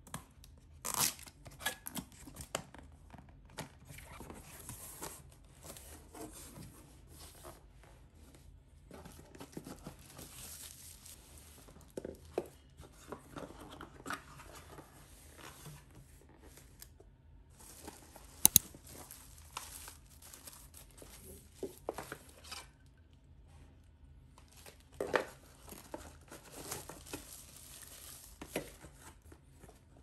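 Cardboard packaging being opened and unpacked by hand: paper wrapping rustling and tearing, and cardboard inserts sliding and scraping, broken by sharp knocks, the loudest a quick double knock about two-thirds of the way through.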